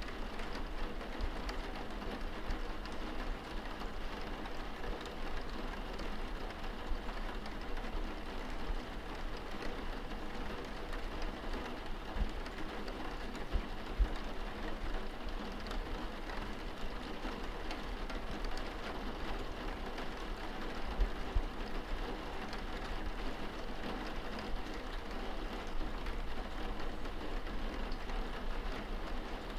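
Light rain pattering on window glass, heard from indoors: a steady patter with scattered drops ticking against the pane and an occasional heavier drop standing out.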